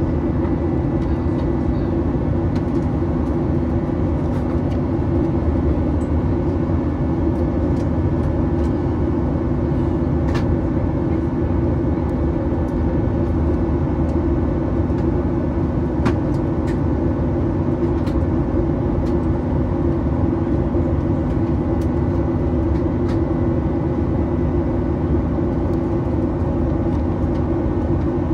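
Steady cabin noise of a Boeing 737-800 in flight: its CFM56 engines and the rush of air heard inside the cabin, an even roar with a steady hum through it and a few faint clicks.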